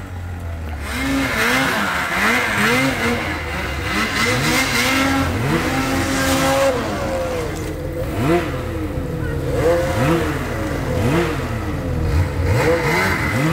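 Snowmobile engine revving up and dropping back again and again, its pitch rising and falling in quick repeated swells over a steady low drone.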